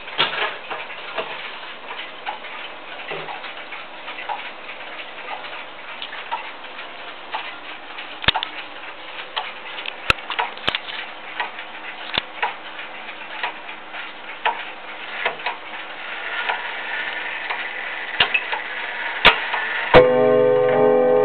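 Haller & Dorsch grandfather clock ticking steadily. About twenty seconds in, a click is followed by the start of its deep, full chime, several ringing tones sounding together.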